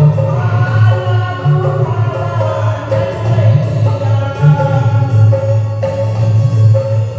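Hindu devotional bhajan music: a continuous melody over a steady low accompaniment.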